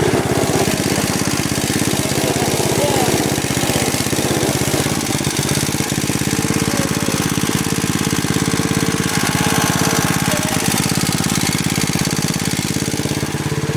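Snapper riding mower's 8 hp pull-start Tecumseh single-cylinder engine running at a steady speed, with a fast, even firing pulse.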